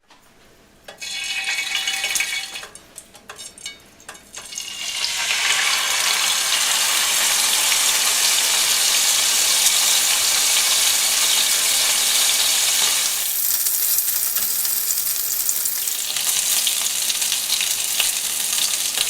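Chicken thighs sizzling in hot oil in a frying pan: a steady, loud hiss that sets in about four seconds in, after a few clinks and short bursts.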